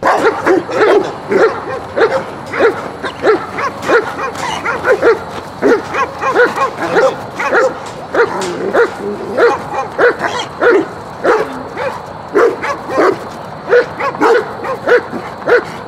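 East European Shepherd barking steadily at a helper holding a stick, about two barks a second: guard barking at a stranger in protection training.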